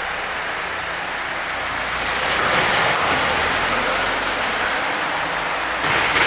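Road vehicle passing on a street, its engine and tyre noise swelling about two seconds in, with a short sudden burst of noise near the end.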